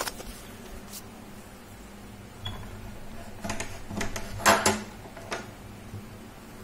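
Scattered clicks and knocks of handling, the loudest about four and a half seconds in, over a low steady hum.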